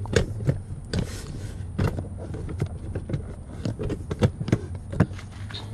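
A run of irregular light clicks and knocks, several a second, over a steady low hum.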